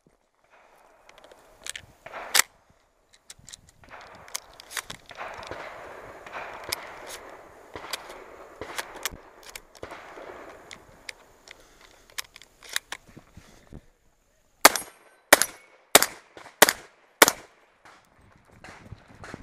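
Gunshots on a shooting stage: two fainter cracks about two seconds in, a stretch of footsteps crunching on gravel, then a string of five quick, loud shots about two-thirds of a second apart.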